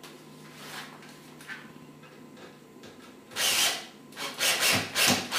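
Cordless screw gun driving a screw through a skylight shade's metal top bracket into the ceiling. It runs in several short trigger bursts, starting about three seconds in.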